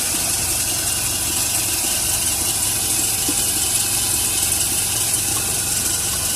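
Steady low mechanical hum with a hiss over it.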